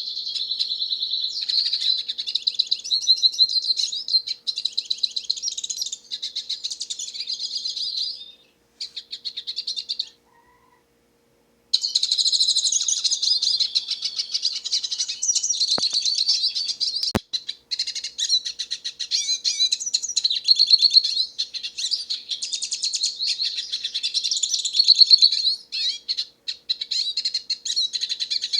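Hooded siskin singing: a long, fast run of twittering and chirping notes. The song breaks off for about three seconds partway through, then resumes, with a single sharp click in the middle.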